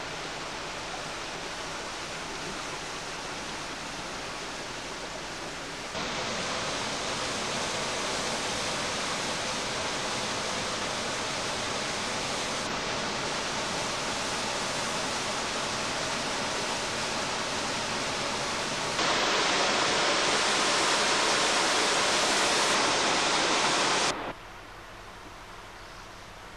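Steady rush of water inside an old stone water mill, with no separate events. It steps louder about six seconds in and again about nineteen seconds in, then drops suddenly to a faint hiss a couple of seconds before the end.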